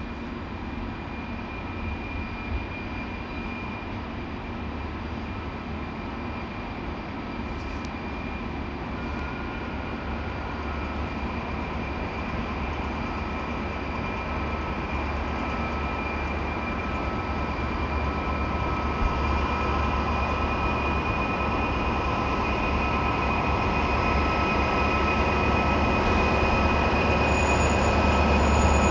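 SNCF BB 67400 diesel locomotive hauling Corail coaches, approaching slowly and drawing past. Its low engine rumble grows steadily louder, with a steady high-pitched whine over it.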